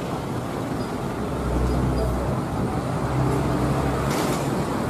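Diesel engine of a full-size coach bus running as it manoeuvres at low speed, a steady low drone that grows a little louder about one and a half seconds in.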